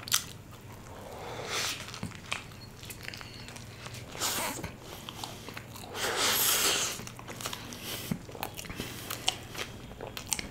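A person chewing a mouthful of fried chicken momos burger, with soft mouth clicks and a light crunch from the fried momos. The chewing swells louder a few times, most around six to seven seconds in.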